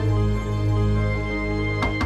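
Soft film-score background music, slow sustained tones over deep low notes, with two short knocks near the end.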